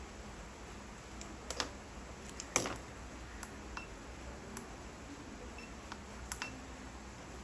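Scattered sharp clicks and light knocks of handling as a crocodile-clip test lead is taken off a pouch lithium battery and the keypad buttons of a FNIRSI HRM-10 battery internal resistance tester are pressed, with a few faint short beeps. The loudest click comes about two and a half seconds in, over a low steady hiss.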